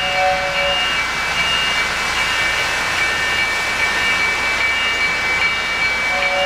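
O-gauge model trains running on three-rail track: a steady rushing rumble of wheels and motors, with several high steady tones over it and a short lower tone in the first second.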